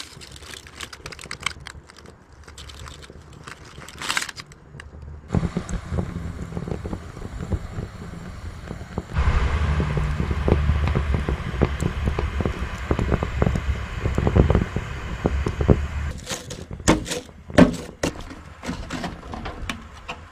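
A propane barbecue grill burning off grease: crackling over a steady low rush. Near the end come several sharp scrapes of a grill brush over the charred rock bed.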